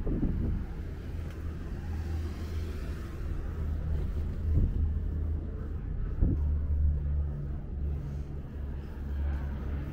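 Low rumble of car traffic on the street, with a steady low hum coming in about two-thirds of the way through and a couple of brief thumps.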